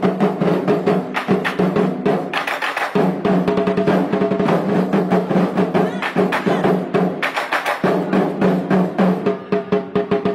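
Lion-dance percussion: a drum beaten in a fast, dense, continuous rhythm.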